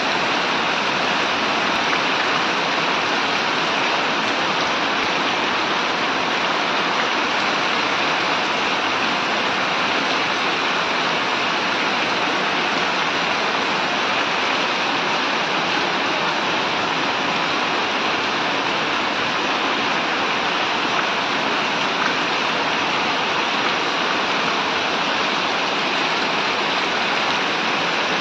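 Steady rain falling on a wet street, an even hiss with no let-up.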